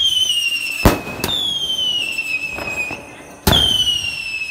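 A 100-shot whistling firework cake firing shot after shot. Each launch goes off with a bang and is followed by a shrill whistle that slides slightly downward for about a second and a half. A sharp crack comes about a second in, and new shots follow about a second and a half in and again past three seconds.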